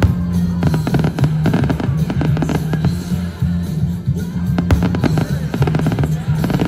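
Fireworks bursting and crackling in quick, irregular succession over loud music with a steady bass line.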